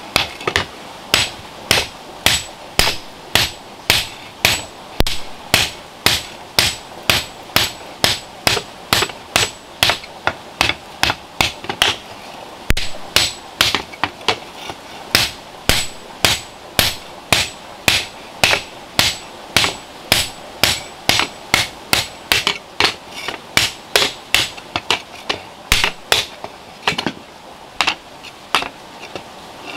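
Hand hammer beating a red-hot iron shovel blade on a stone anvil: a steady run of sharp blows, about two to three a second, that stops a couple of seconds before the end.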